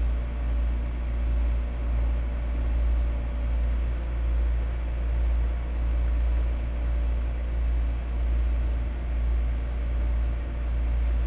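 Steady low mechanical hum that swells and fades about once a second.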